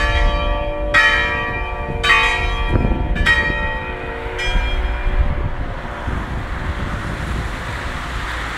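Church bells in the tower ringing, struck about once a second; the strikes stop about four and a half seconds in and the ringing dies away under a steady rushing noise.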